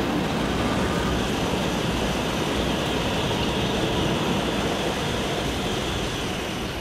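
CRH high-speed electric multiple unit running past along a station platform: a steady rushing noise from the passing train.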